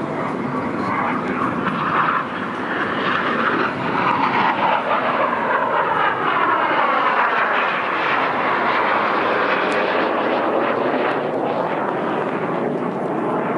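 Military jet aircraft flying past, a loud continuous engine noise whose tone sweeps downward around the middle as it passes.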